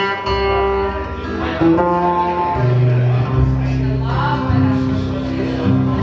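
Live acoustic folk-blues band music: an acoustic guitar played over held notes of an upright double bass.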